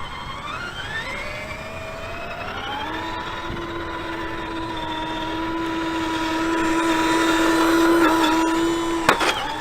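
Electric motor and gear whine of an RC4WD Desert Runner 1/10 scale RC truck driving. It rises in pitch over the first few seconds, then holds steady and grows louder. A sharp knock comes near the end, and the pitch drops after it.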